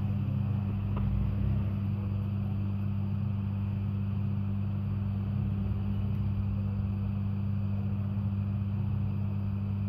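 Steady low electrical hum, an even drone with no rise or fall, and one faint click about a second in.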